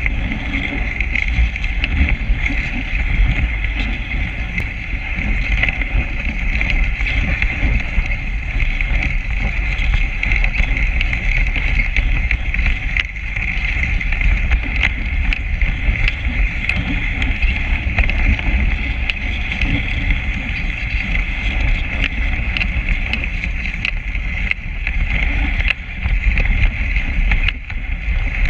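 Dog sled runners hissing steadily over packed snow as the team pulls the sled, under a low rumble, with scattered small ticks and crunches.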